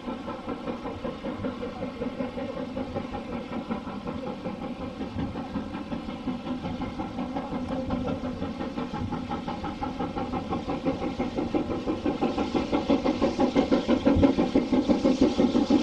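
LMS Black 5 steam locomotive working under steam, its exhaust beating in a steady rhythm of about three beats a second and growing louder as it comes closer.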